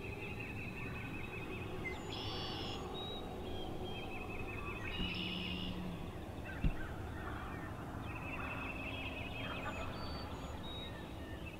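Distant wild turkey toms gobbling, with two short gobbles about two and five seconds in, over small birds trilling repeatedly at dawn.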